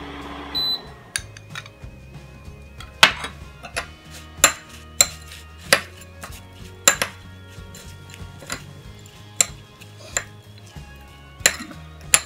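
Steel spoon clinking and scraping against a small ceramic bowl while a chaat mixture is stirred. About ten sharp clinks come at irregular intervals.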